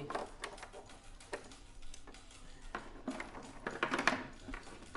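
Scattered light clicks and clatter of equipment being handled, busiest about four seconds in.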